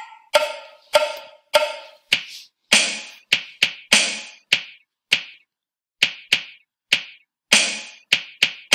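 Sampled drum set playing back from music notation software at 100 beats per minute: a simple bass drum and snare drum pattern of steady beats with some quicker paired eighth notes. It opens with three pitched ticks about a beat apart before the fuller drum hits.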